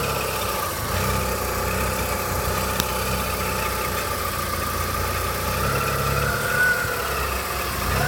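Mitsubishi Galant engine idling with a whistle from under the bonnet, a thin tone that wavers slightly in pitch and rises a little about six and a half seconds in. A single sharp click about three seconds in.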